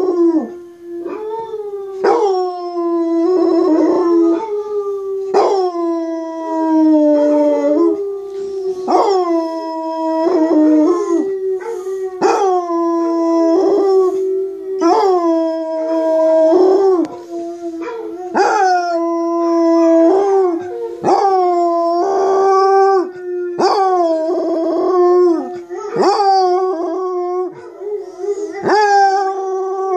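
Basset hound howling: a string of long, steady-pitched howls, one after another with barely a break, each starting with a short sharp note.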